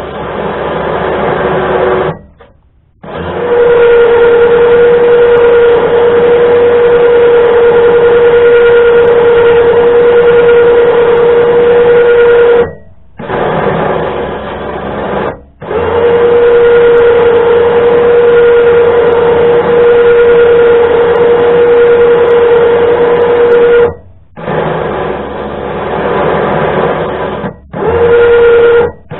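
Electric winch motor running in bursts, winding cable back onto the drum. It gives a loud, steady whine. It runs for several seconds at a time, with short stops between runs. The two longest runs last about eight to nine seconds each.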